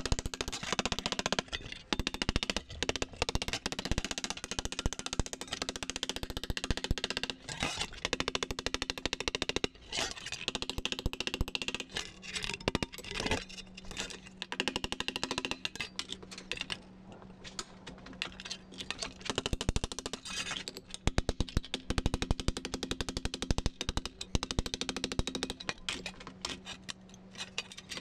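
Rapid, repeated hammer blows on a chisel cutting a circle out of sheet steel on an anvil, with a steady ring underneath.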